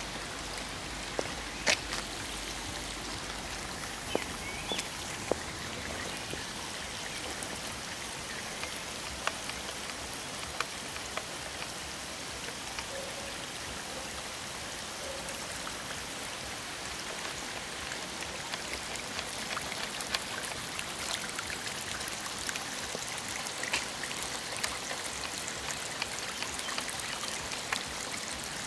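Steady hiss of rain and running water, with individual drops pattering close by, a few of them sharp and louder.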